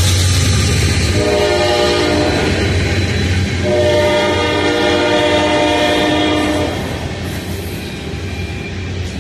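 Freight train passing at speed, the steady rumble of its cars rolling by, with the locomotive's multi-note air horn sounding a short blast and then a longer one of about three seconds. The horn stops about two-thirds of the way through, and the rolling rumble of the cars carries on.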